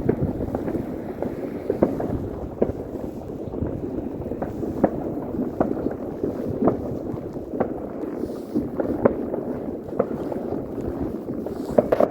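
Distant fireworks going off as scattered sharp bangs, roughly one a second, with a quick pair near the end, over steady wind rumbling on the microphone in a snowstorm.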